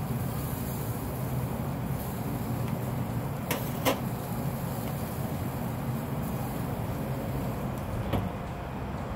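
A plate set down on a pellet grill's metal side shelf with two sharp clacks about three and a half seconds in, then the grill's steel lid shut with a knock near the end, over a steady low rumble.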